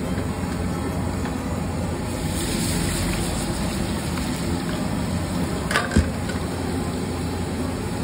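Steady roar of the gas burner under a large flat iron tawa, with oil poured onto the hot metal and sizzling from partway through. Two short sharp knocks about six seconds in.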